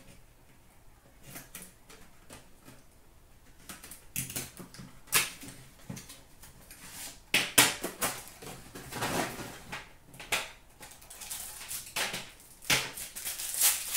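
A cardboard trading-card box being slit open and unpacked by hand: clicks, scrapes and rustling of cardboard and packaging. Near the end, a foil pack wrapper crinkles. The rustling is sparse at first and busier from about four seconds in.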